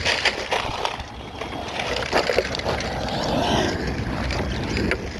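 Large-scale brushless electric RC trucks (Arrma Kraton 8S class) driving over dirt and gravel: tyres crunching and throwing stones, with motor whine rising and falling, and wind buffeting the microphone.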